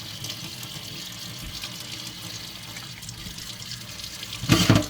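Water running from a Moen kitchen faucet into the sink, a steady splashing hiss, with one brief loud knock near the end.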